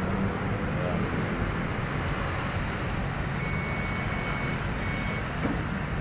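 Multimeter continuity beeper sounding three short beeps a little past the middle, as the number 2 spark plug wire is tested for continuity, over a steady low rumble of background noise.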